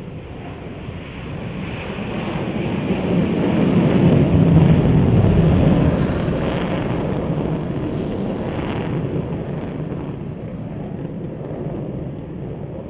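Rockwell B-1B Lancer's four General Electric F101 turbofans at full afterburner on takeoff: a loud, deep rushing roar that swells to its loudest about four to five seconds in, then slowly fades as the bomber climbs away.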